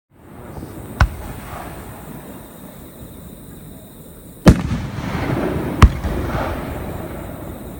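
Aerial fireworks shells bursting: a sharp bang about a second in, then two more about a second and a half apart past the middle, with a low rumbling echo lingering between the bursts.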